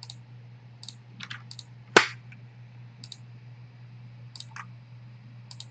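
Computer mouse clicking: scattered single sharp clicks, a few in quick pairs, with one louder click about two seconds in, over a low steady hum.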